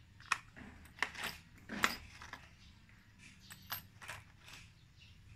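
Scattered light metallic clicks and clinks, about nine irregular taps, from small metal parts handled at a homemade manual knife chopping board.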